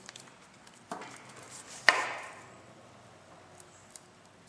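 Heavy-cable crimping pliers closing on a brass ferrule over a rubber gas hose: a small click about a second in, then one loud sharp click near two seconds as the crimp is made, ringing out briefly, with light ticks of the tool being handled.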